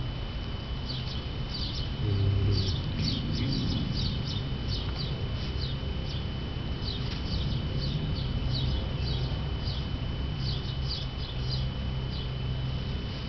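Small birds chirping in quick runs of short, falling, high notes that come and go in clusters. Underneath are a steady high-pitched tone and a low rumble.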